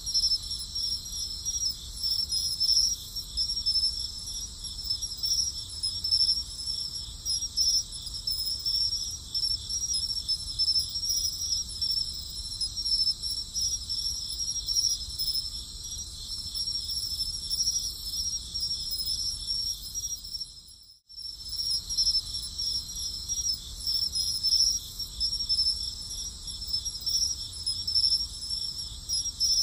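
A chorus of night insects trilling steadily in high-pitched pulsing bands. It drops out for a moment about 21 seconds in, then starts again.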